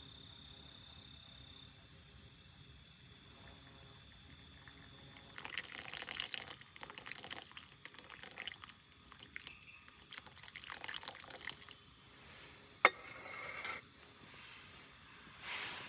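Hot water poured in a thin stream from a stainless gooseneck kettle into a metal drip coffee filter (Vietnamese phin), starting about a third of the way in and running for several seconds, with crickets chirping steadily behind. Near the end a single sharp metal clink as the kettle is set down on the table.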